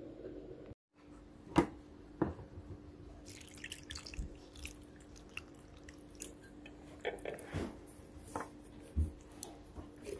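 Juice dripping from canned pineapple chunks through a metal mesh strainer: a scatter of small drips and taps, with a sharp knock about one and a half seconds in, over a faint steady hum.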